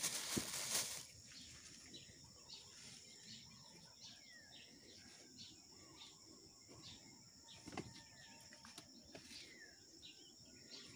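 A brief rustle of plastic produce bags, then birds chirping with short calls and little falling whistles over a faint steady high-pitched hum. A single light knock about eight seconds in.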